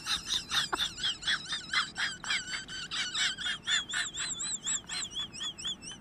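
A small animal's rapid, high-pitched chirping calls, about five a second, with a wavering trill that comes to the fore in the second half.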